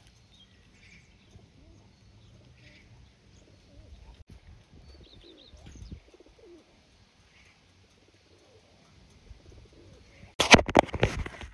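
Pigeons with faint cooing and chirps, then about ten seconds in a loud clatter of flapping wings lasting about a second.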